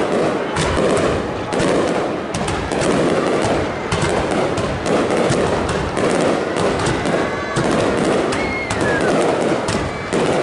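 Fireworks display: a dense, continuous barrage of bangs and crackling with no let-up, and a brief whistling tone about eight seconds in.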